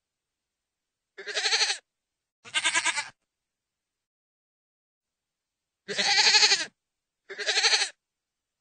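Goat bleating: four short, wavering bleats, each under a second long, coming in two pairs with dead silence between the pairs.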